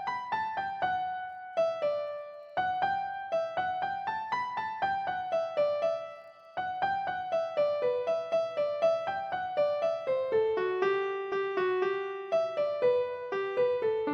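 Background piano music: a gentle melody of single struck notes, with two short breaks in the phrasing.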